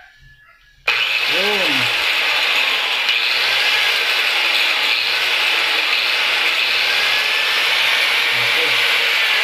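DeWalt angle grinder starting about a second in, its motor getting up to speed at once and then running steadily with the disc spinning free. It runs again now that its carbon brushes have been refitted.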